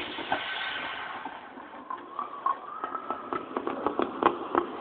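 Plastic water-cooler bottle creaking and crackling with a run of short sharp clicks as the vacuum from a faucet aspirator crushes it, with a hiss in the first second.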